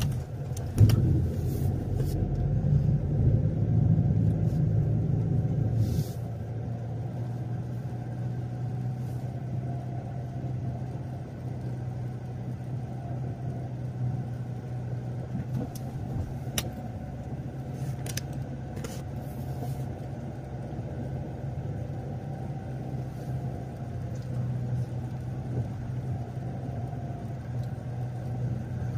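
A car driving: steady low engine and road drone, louder for the first six seconds and then settling to an even level, with a few faint clicks along the way.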